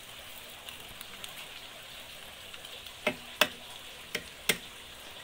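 An egg frying in oil in a double-sided frying pan: a steady sizzle, with four sharp pops or clicks between about three and four and a half seconds in.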